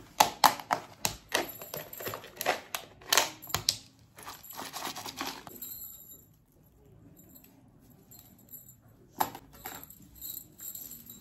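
Bangles clinking against one another as they are slid off the wrist: a quick run of sharp, ringing clinks over the first four seconds, a pause, then a few more clinks near the end.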